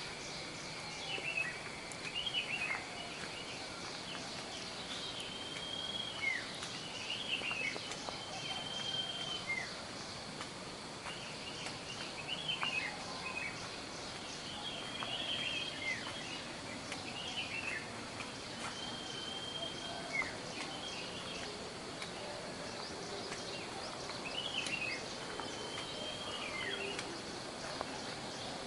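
Birds calling outdoors: many short, sweeping chirps and brief trilled notes scattered throughout, over a steady high insect drone.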